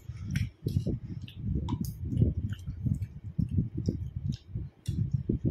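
A metal fork clicking and scraping against a plate as a momo is cut and lifted, over irregular soft low thumps of handling and chewing.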